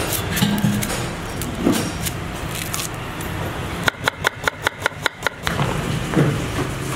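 Knife slicing red onion on a wooden chopping board: a quick run of about eight sharp chops in a second and a half, a little past the middle, over a steady background din.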